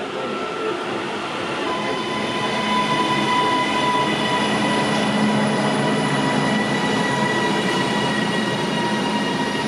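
Passenger train pulling into a station platform: the rumble of the train with a steady high whine from its wheels and brakes, growing a little louder after a couple of seconds.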